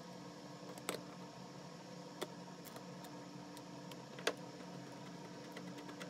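Small flathead screwdriver and the screws of a plastic light-switch cover plate clicking as the plate is fitted and screwed down: three sharp clicks about one, two and four seconds in, with fainter ticks between. A faint steady hum runs underneath.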